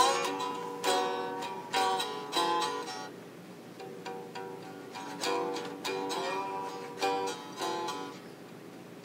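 Homemade stick-neck string instrument played with a slide: single plucked notes and short phrases ringing out, with a note sliding upward about six seconds in.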